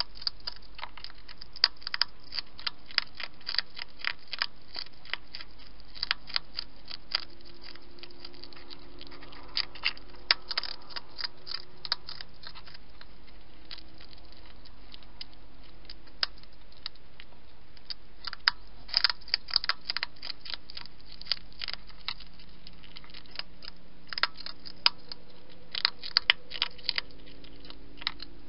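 A wild European hedgehog chewing and crunching its food, with sharp irregular crunches that come in clusters.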